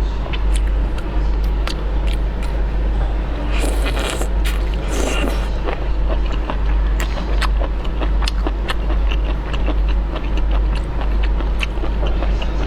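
Mouth sounds of someone eating: many short wet clicks and chews, with two brief rushing noises about four and five seconds in, over a steady low hum.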